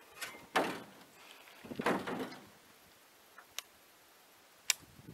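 Handling noises in a small aluminum jon boat: two brief scraping sounds about a second apart, then two sharp clicks near the end.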